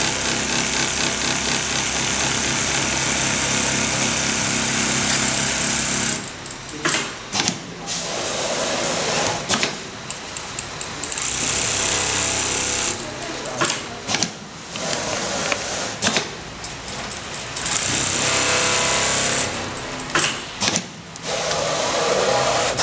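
Automatic template sewing machine stitching at high speed in several runs, a fast, steady mechanical chatter, stopping between runs with sharp clicks and clacks.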